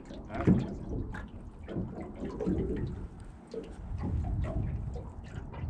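Lake water lapping and splashing against the hull of a small boat, in irregular small splashes.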